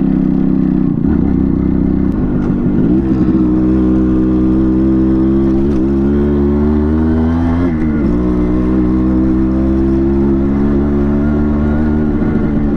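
Yamaha RX 100's two-stroke single-cylinder engine pulling the moving motorcycle: the engine note climbs, dips sharply twice as the rider changes gear about six and eight seconds in, then runs on at a steady pitch.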